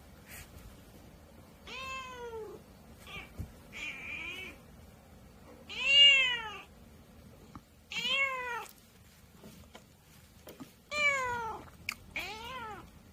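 Cat meowing again and again, about six drawn-out meows that rise and fall, the loudest about six seconds in, while a Chihuahua pesters her ears.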